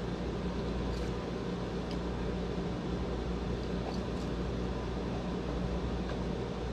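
Steady mechanical room hum, like a running fan, with a few faint, soft clicks scattered through it.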